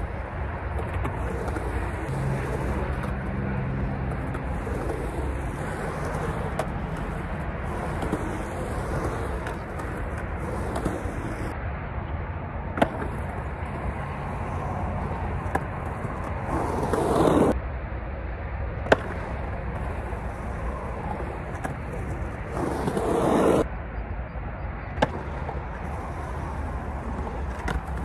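Skateboard with hard 92A urethane wheels rolling over concrete park surfaces. The rolling noise swells louder twice, about halfway through and again about three-quarters through, as the board rides the transition. A few sharp single clacks of the board come in between.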